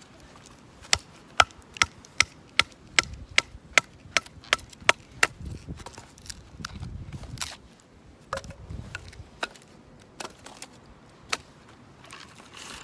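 Firewood being split by batoning, a knife blade driven into a log by a quick run of about a dozen knocks, two to three a second. A few scattered single knocks and clatter of wood follow.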